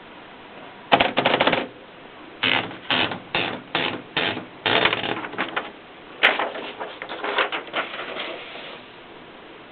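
Triumph Norm 6 typewriter being typed on: sharp key strikes in uneven runs. There is a quick flurry about a second in, then single strokes about twice a second, then further clustered bursts that stop near the end.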